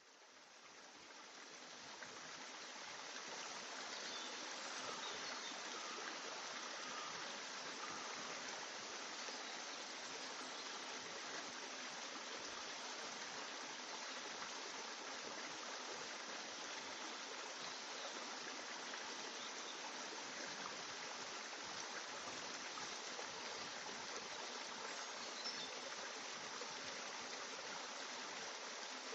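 Steady rushing noise like running water, fading in over the first few seconds and then holding even.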